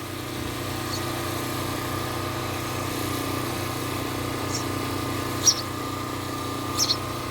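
A steady motor hum runs throughout, with a few short high-pitched chirps about four and a half, five and a half and seven seconds in.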